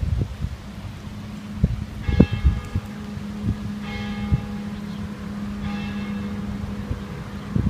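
Church bell struck three times, about two seconds apart, each stroke ringing on with a lingering low hum.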